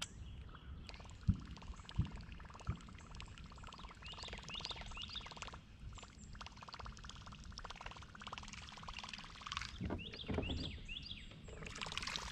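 Baitcasting reel being cranked steadily as a topwater lure is retrieved, with a fine rapid ticking, and a few soft knocks on the kayak in the first three seconds. Birds chirp in short repeated bursts twice, about four and ten seconds in.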